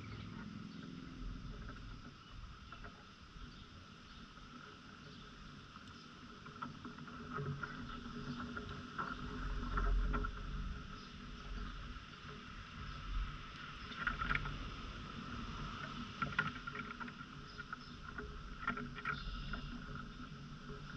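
Outdoor yard ambience: low wind rumble on the microphone under a steady high drone, with a few short bird chirps in the second half.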